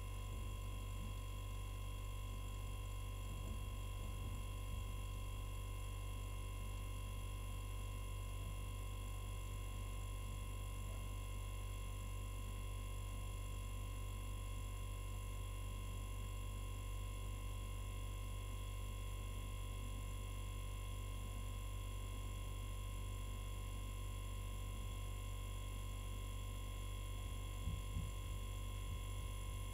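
Hermetic refrigerator compressor, used as a quiet airbrush compressor, running with a steady low hum while it pumps air into the tank and the pressure builds.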